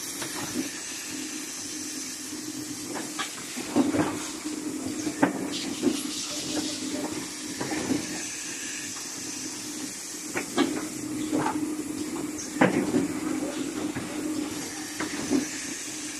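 Pneumatic aerosol-can case packer running: a steady mechanical hum with a hiss of compressed air, broken by sharp clacks every second or two as its pneumatic actuators cycle.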